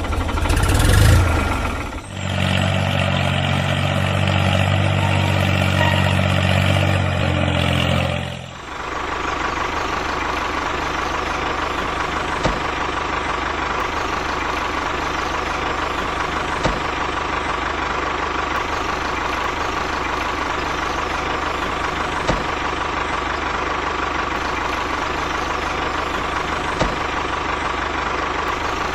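Small engine running steadily. It changes abruptly twice, near 2 s and again near 8.5 s, then runs evenly with a faint whine and an occasional click.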